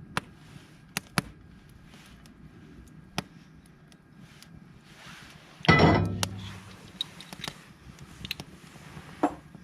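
Wood campfire crackling, with sharp pops scattered through it. About six seconds in comes a loud, brief knocking clatter, and a smaller knock near the end.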